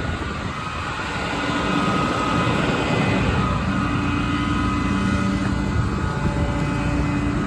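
A 6.7 Cummins diesel engine running steadily, with a droning hum made of several steady tones that comes up a little about a second and a half in.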